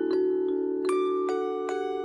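Background music: a slow melody of struck, bell-like notes, about two a second, each ringing on into the next.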